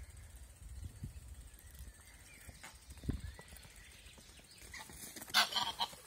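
Footsteps on a dirt path with low wind rumble, then near the end a greylag goose takes off close by in a sudden loud flurry of wingbeats and calls.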